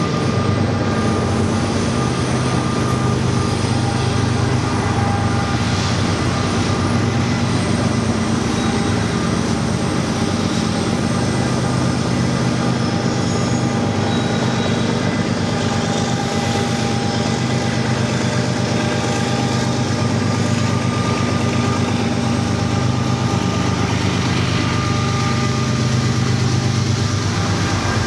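Diesel locomotives at the head of a freight train approach and pass close below, their engines running with a steady low drone.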